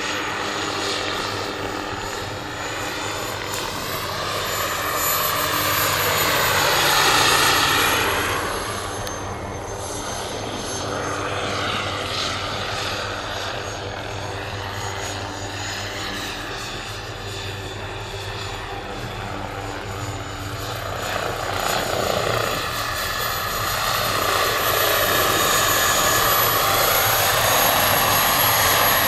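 Jakadofsky Pro X turbine and rotor of a giant radio-controlled SA-315B Lama scale helicopter in flight: a steady high turbine whine over rotor noise, with a sweeping, phasing quality as it moves. It swells as it passes close about seven seconds in, and grows louder again near the end as it comes in low.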